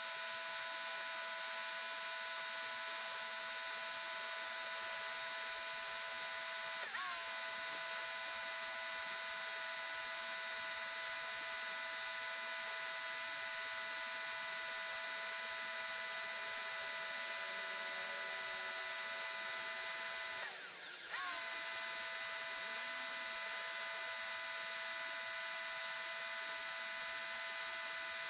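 Portland electric pressure washer running with a steady high motor whine. Near the two-thirds mark it briefly drops in pitch and level, then comes back up to speed.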